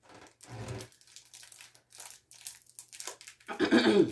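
Foil wrapper of a Pokémon card booster pack rustling in short bursts as it is gripped and pulled at to open it, with one louder burst about three and a half seconds in.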